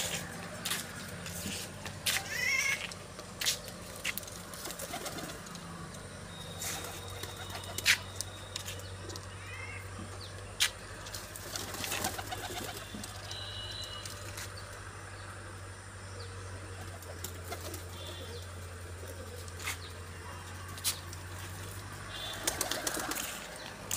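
Domestic pigeons cooing, with wing flaps. Scattered sharp clicks are heard over a steady low hum.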